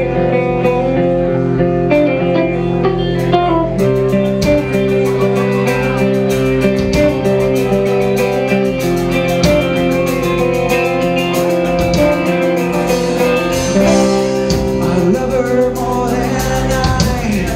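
Live band playing a song's instrumental introduction, led by guitar, with cymbals and drums joining about four seconds in.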